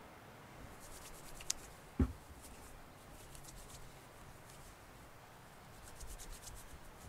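Quiet handling sounds: soft rubbing and small clicks, with one dull thump about two seconds in.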